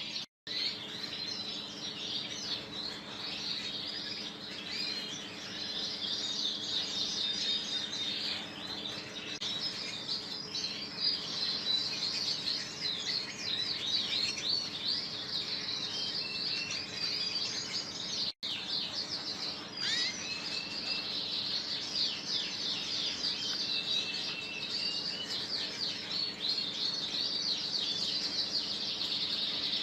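Rasmi Boland (Persian) canary singing a long, continuous song of rapid trills and rolling high phrases. The song breaks off for an instant twice, near the start and about halfway through.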